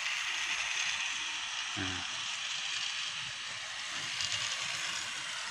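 Battery-powered toy trains running on plastic track: a steady whirring of small motors and wheels. A brief vocal sound about two seconds in.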